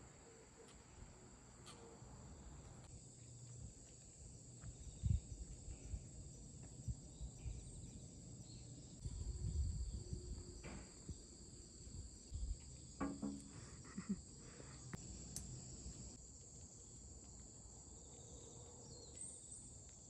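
Faint, steady chirring of insects such as crickets, two unbroken high-pitched trills, with a few soft low thumps and faint clicks in between.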